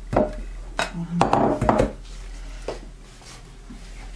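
Glass bowl and plastic colander knocking and clinking together on a countertop as they are handled, several knocks in quick succession in the first two seconds and one lighter knock after.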